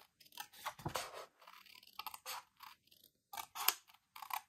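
Scissors cutting out a paper sentiment: a run of short, irregular snips with small pauses between them.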